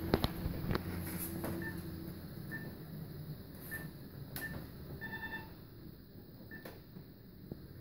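Quiet room sounds: scattered light clicks and taps, the loudest near the start, and a few short, high electronic beeps, one double beep about five seconds in. A low hum fades out about two seconds in.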